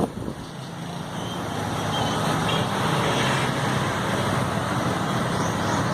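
A motor vehicle's engine running on the road, with traffic noise. It grows louder over the first two or three seconds and then holds steady.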